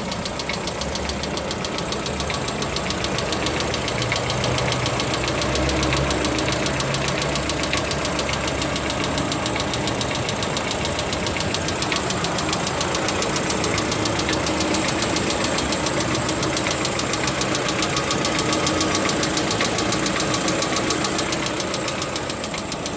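Lada Vesta engine running steadily with a rapid, even ticking from its hydraulic lash adjusters (lifters), a knock the maker has declared normal.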